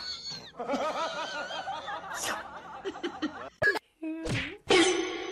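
A woman laughing in a wavering, giggly voice for about three and a half seconds. After a brief gap, a short low sound and then a short loud burst near the end.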